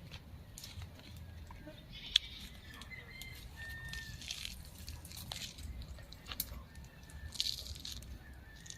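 Close-up mouth sounds of chewing and crunching raw vegetables, with scattered crisp clicks and one sharp snap about two seconds in. A faint high, thin tone sounds briefly near the middle.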